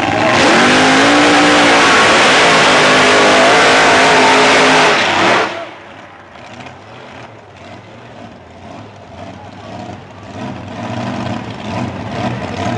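Two top alcohol dragsters launching side by side at full throttle, a dense engine sound rising in pitch in the first second or so and then holding for about five seconds. The sound then drops suddenly to a much quieter distant rumble.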